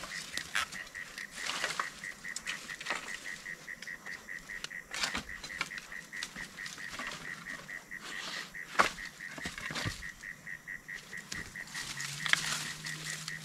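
Fire crackling with irregular sharp pops, one loud pop about nine seconds in. A steady rapid chirping pulse at one high pitch runs underneath.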